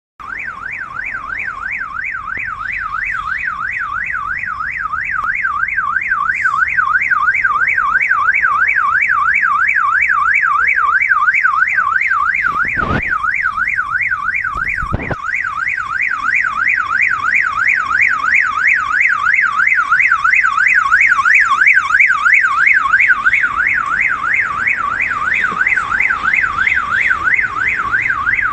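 Toyota Corolla Altis security alarm siren going off: a loud electronic tone that warbles rapidly up and down without a break. Two sharp knocks come about halfway through, some two seconds apart.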